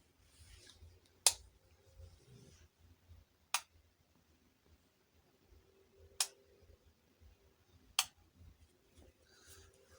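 Four sharp, single clicks about two to two and a half seconds apart over faint room noise, the second the loudest.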